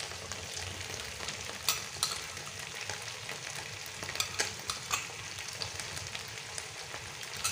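Steady sizzling in a frying pan as sweet soy sauce with sliced onion and chilli hits fried chicken wings and garlic in hot oil, with a few short sharp utensil clicks.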